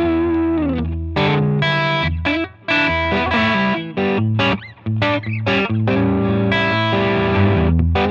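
Electric guitar played through an Oldfield Amplifiers Model 6420 amp: chords and single notes with short breaks between phrases, and a note bent downward in pitch about half a second in.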